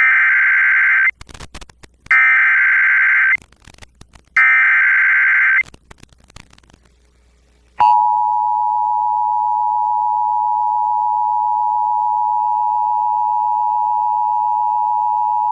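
Emergency Alert System header: three bursts of SAME digital data tones, about a second each with short gaps between, then the steady two-tone attention signal held for about eight seconds. The sequence heralds a severe thunderstorm warning.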